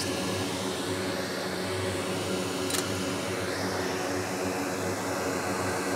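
Steady fan hum with an even hiss underneath; a faint click nearly three seconds in.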